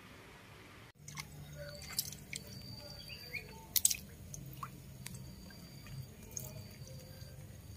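Water dripping and lapping in a plastic tub as baby monkeys move about in it, with scattered small drips and clicks. This follows about a second of steady faint hiss that cuts off suddenly.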